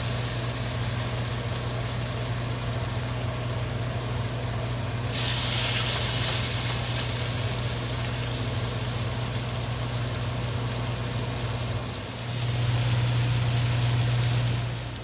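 A steady low mechanical hum under a hiss, a kitchen appliance motor running. The hiss brightens for a couple of seconds about five seconds in, and the hum grows louder near the end.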